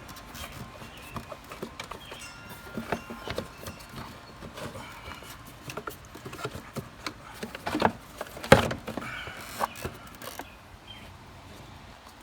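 Irregular plastic knocks, clicks and rattles of an air cleaner box assembly being pushed and worked into its rubber mounts in a car's engine bay, with a sharper knock about eight and a half seconds in.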